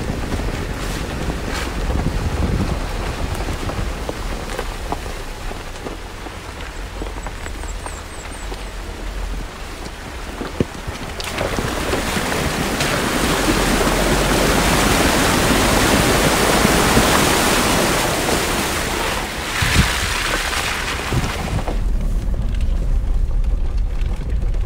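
A 4x4 driving a gravel track with wind noise on the microphone, then splashing through a shallow creek ford: a loud rush of spraying water builds about 11 seconds in and dies away about 10 seconds later, with a couple of sharp knocks from the rocky bed. Near the end the sound turns to a duller, muffled rumble of the vehicle heard from inside the cab.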